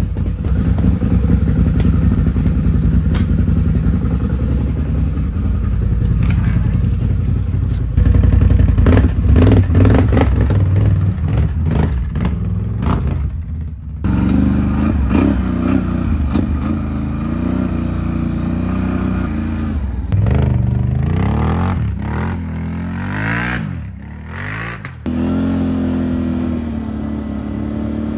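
2019 Can-Am Renegade XXC 1000 ATV's Rotax V-twin engine running: steady at first, louder for a few seconds about eight seconds in, then revving up and down repeatedly as the quad is ridden.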